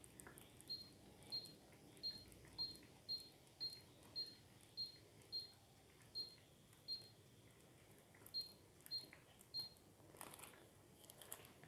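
Faint short high beeps from a Taffware H24 aroma diffuser, about fourteen at one or two a second, each acknowledging a button press on its remote as the lamp is switched on and its colours changed. A couple of soft handling knocks come near the end.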